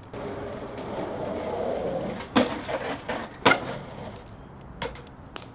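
Skateboard wheels rolling on concrete, then two sharp clacks of the board striking, about a second apart, followed by a few lighter knocks.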